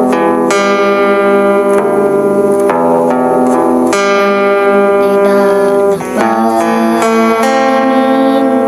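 Music: an acoustic guitar playing, plucked notes that ring on and overlap, with no singing.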